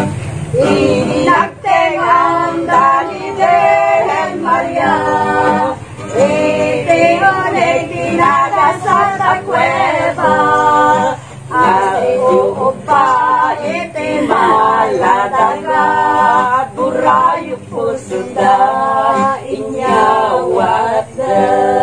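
A small group of women's voices singing an Ilocano Christmas carol together.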